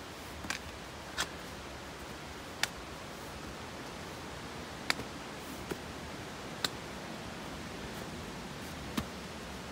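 A hiker walking a rocky trail strewn with dry leaves: sharp clicks of steps or trekking poles on rock, seven or so at uneven intervals, over a steady hiss.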